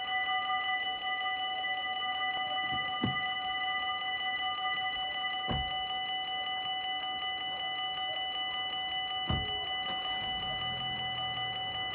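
Dutch railway level-crossing warning bell ringing continuously, a fast, even electronic ringing, while the barrier arms lower. A few dull thumps are heard, and a low hum comes in near the end.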